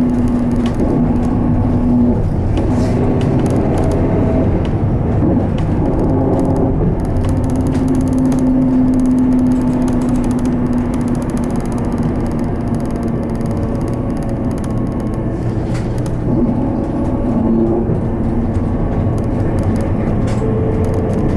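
Cabin running sound of an Isuzu Erga Hybrid route bus (QSG-LV234N3) on the move: a steady drone of drivetrain and road noise, with a droning tone that fades out and returns a few times.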